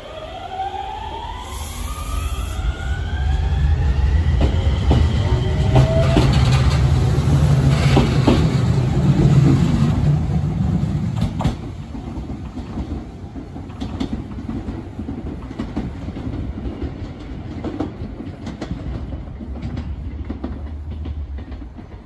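Enshu Railway electric train pulling out of the station and moving away. Its motors whine in several tones that rise in pitch over the first six seconds or so. A loud rumble and the clatter of wheels peak in the middle, then fade as the train recedes.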